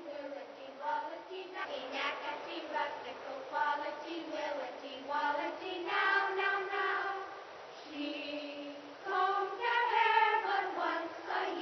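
A group of children singing a repetitive song together in unison, phrase after phrase with brief pauses.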